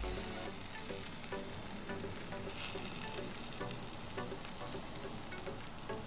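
Steak and chicken sizzling on a charcoal grill, a steady hiss, with faint background music.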